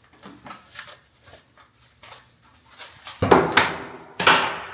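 A sheet of foil-backed butyl sound-deadening mat (Kilmat) being handled: faint small rustles and clicks, then two loud rasping crinkles about a second apart near the end.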